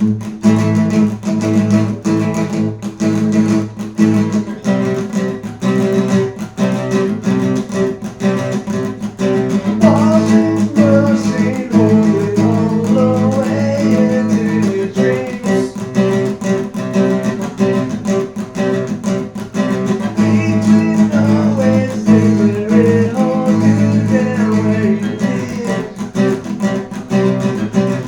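Acoustic guitar music with strumming, with a wavering melody line coming in about ten seconds in.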